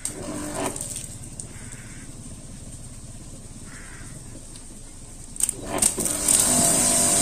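A few sharp clicks from the pressure-washer gun and lance being handled. Then, about six seconds in, the electric pressure washer starts up and runs loudly and steadily, with a high whine over a hum, as the trigger is pulled.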